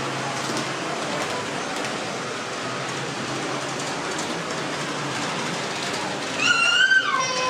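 Steady hall noise with faint background voices, while model trains run on the layout. About six and a half seconds in, a high-pitched call starts, stepping up in pitch and then dropping to a lower held note.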